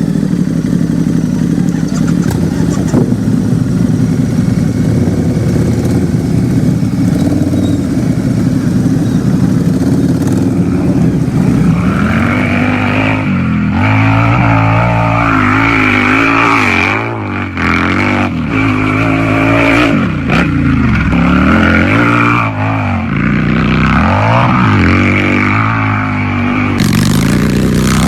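Harley-Davidson motorcycle's V-twin engine idling steadily, then from about twelve seconds in revved repeatedly, the pitch rising and falling with each blip of the throttle.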